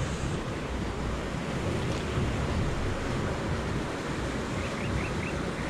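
Wind buffeting the microphone, a steady low rush with no distinct knocks or splashes.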